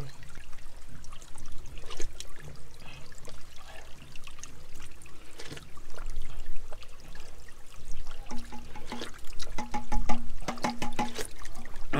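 Spring water trickling over rocks, with small splashes as it is scooped up in a cupped hand. Background music with a few held notes comes in about two-thirds of the way through.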